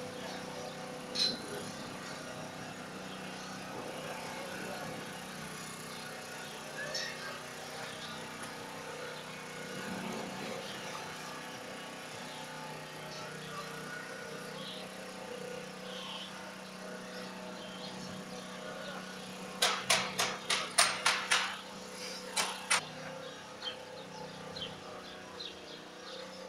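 A steady low hum under faint background noise, broken about three-quarters of the way in by a quick run of about eight sharp knocks over two seconds, followed shortly by two more.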